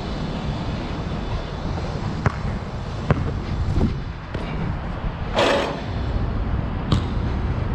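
A basketball striking an outdoor court: three sharp bounces a little under a second apart starting about two seconds in, and one more near the end, over a steady low rumble. A short hiss comes about five and a half seconds in.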